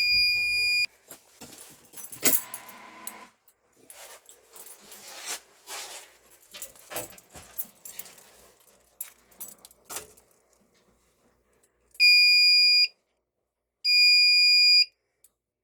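Fire alarm sounding a steady high-pitched tone that cuts off abruptly about a second in. Scattered clicks and handling noises follow, then two more one-second blasts of the same tone, about two seconds apart, near the end.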